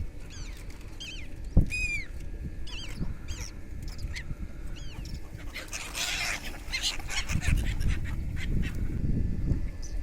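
Birds calling in a series of short, arching chirps, mostly in the first few seconds. There is a sharp thump about a second and a half in, and a low rumble in the second half.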